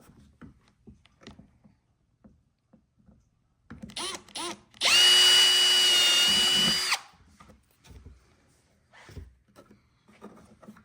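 Power drill with a stepped bit drilling a quarter-inch hole through a snowmobile's plastic body panel. Two short trigger blips rise in pitch, then the drill runs steadily with a whine for about two seconds and stops abruptly. Light handling clicks come before and after.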